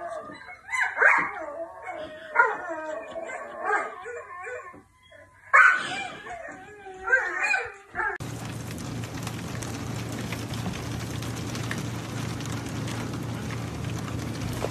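A dog whining and howling in wavering, pitch-bending cries for about eight seconds, then a steady hiss with a low hum.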